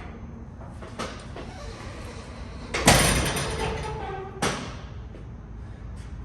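Heavy metal clang from the steel tilt cab of a Chevrolet W4 truck being lowered and settling onto its mounts, ringing for over a second. It comes after a lighter knock and is followed by a second sharp clank.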